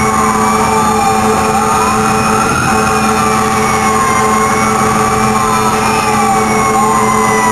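Fire engine sirens wailing: two siren tones rise and fall every few seconds, out of step so that one climbs while the other falls, over the steady drone of the engine. Heard from inside the moving apparatus on an emergency response.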